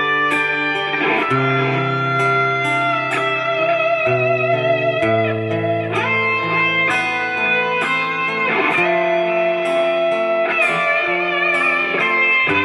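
Guitar music: held, wavering notes that slide between pitches, over a changing bass line.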